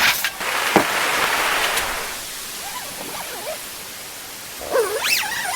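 Steady hiss of heavy rain, easing somewhat about two seconds in. A short warbling pitched call sounds near the end.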